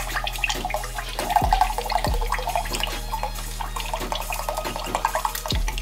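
Liquid egg whites pouring in a steady stream into a drinking glass.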